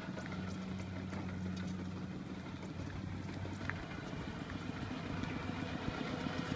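Kubota RT120 single-cylinder diesel engine of a two-wheel walking tractor idling steadily.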